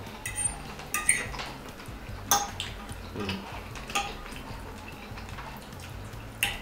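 Metal fork clinking and scraping against a ceramic plate while scooping up pasta, with a few sharp clinks about a second in, near the middle and at the end.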